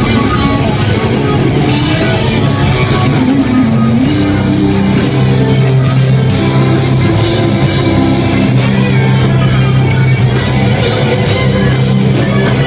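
Live rock band playing loudly: electric guitar lead over bass and drums, with long held guitar notes in the middle and later part.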